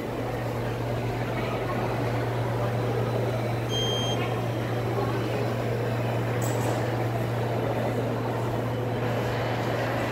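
Railway station concourse ambience: a steady low hum under a continuous echoing background hiss, with a short electronic beep about four seconds in.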